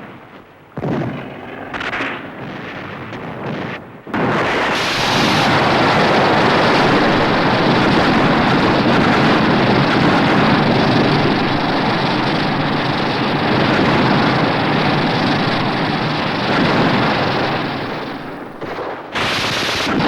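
Film sound effects of explosive blasts: a few short bangs, then a long, loud, continuous rumble of blast noise that dips briefly near the end before another burst.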